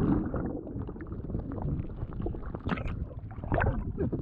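Jet ski running on open sea: low, noisy engine and hull sound, with irregular slaps of water and wind on the microphone.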